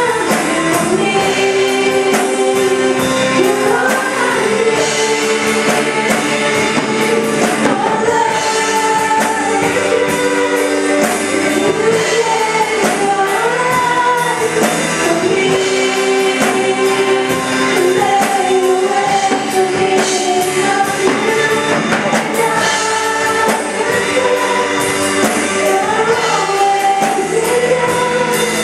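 Worship song: singing voices over instrumental backing, playing steadily without a break.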